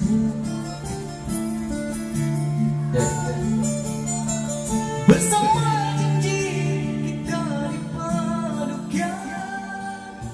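A man singing into a microphone over backing music with held notes and a guitar-like accompaniment.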